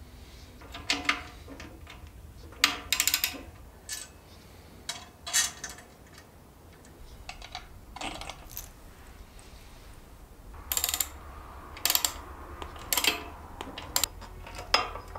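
Scattered metallic clicks and clinks, some in quick clusters, from hand tools and hardware as handlebars are fitted into the clamp on a moped's front fork.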